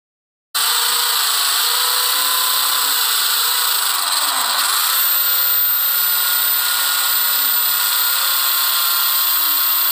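Handheld corded electric drill with a 10 mm bit boring into a wall. The motor whine starts abruptly about half a second in, dips in pitch briefly about four seconds in, then runs steadily again.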